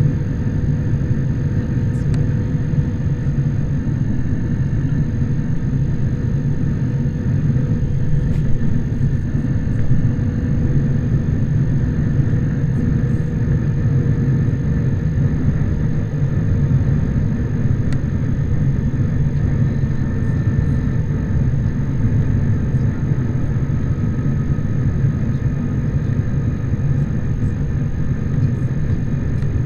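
Jet airliner cabin noise in flight: a steady low rumble of engines and airflow, with a faint steady hum over it.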